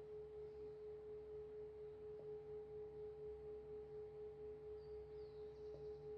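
A singing bowl ringing quietly on one steady tone with a fainter higher overtone, its loudness wavering in an even pulse about twice a second.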